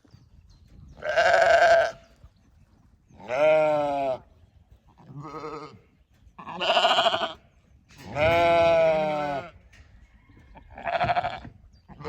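Sheep bleating: six separate calls a second or two apart, each with a trembling, wavering pitch, some higher and some lower.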